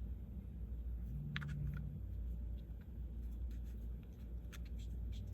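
Small resin 3D-printed parts being handled and pressed into place: a few faint, sharp plastic clicks and light scrapes.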